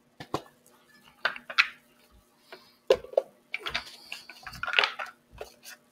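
A deck of oracle cards and its box being handled and shuffled by hand: a series of taps and clicks of cards and box against each other and the table, with short rustles of cards sliding, the busiest stretch a little after the middle.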